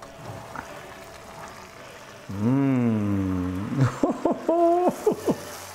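Hot fat sizzling in a metal roasting tray around a freshly roasted suckling pig just pulled from the oven. A man's voice rises over it with one long drawn-out exclamation, then a few short sung notes.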